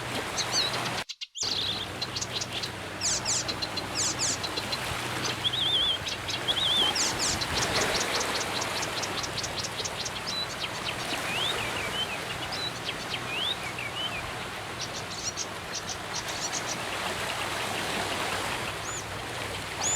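Several wild birds singing and calling: quick high chirps, fast trills and short rising whistles, over a steady background hiss. The sound cuts out briefly about a second in.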